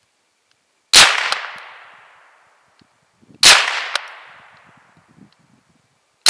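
Gevarm E1 semi-automatic .22 Long Rifle rifle firing: two single shots about two and a half seconds apart, with a third starting right at the end. Each sharp crack trails off over about a second and a half.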